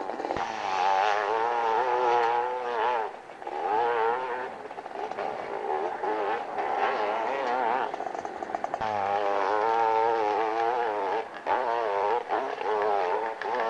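Hillclimb motorcycle engines revving hard, their pitch swinging up and down continuously as the throttle is worked on the climb, with short drops in loudness about three seconds in and again near the end.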